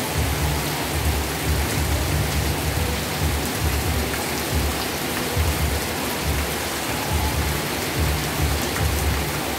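Heavy rain pouring down steadily, a dense even hiss of rain on surfaces, with a low rumble underneath that swells and dips.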